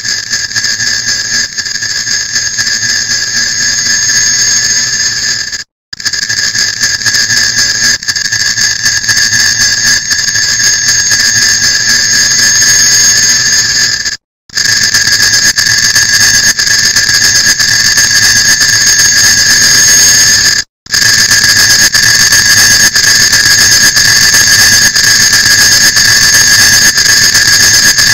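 Clock-tick sound effect sped up and stacked so densely that the ticks merge into a loud, shrill buzzing tone. It cuts out briefly about six, fourteen and twenty-one seconds in, and each stretch after a cut is a little louder.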